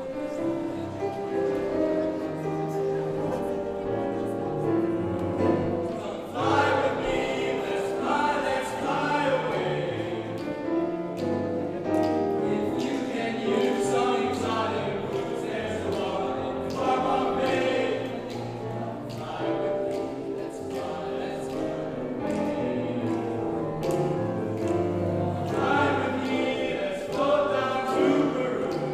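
A choir singing with held, overlapping notes and instrumental accompaniment.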